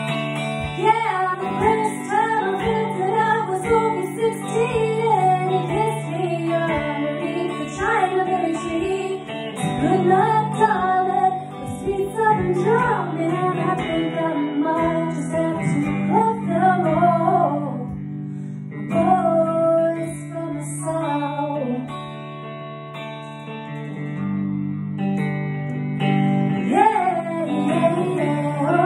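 Music: a hollow-body electric guitar playing chords, with a melody line that bends in pitch over them. A woman's voice joins near the end.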